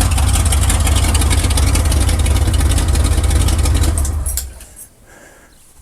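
1979 Chevy pickup's V8 running with a misfire, then shut off about four seconds in.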